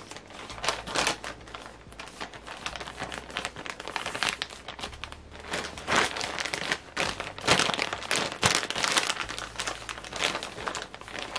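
Clear plastic Shein swimsuit packaging bag crinkling in the hands as a bikini is stuffed into it: an irregular run of rustles and crackles, louder in the second half.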